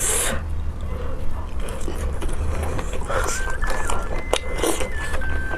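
Biting and chewing sounds of someone eating, with scattered crunchy clicks and short bursts. About three seconds in, a simple high melody of plain steady electronic notes begins over a constant low hum.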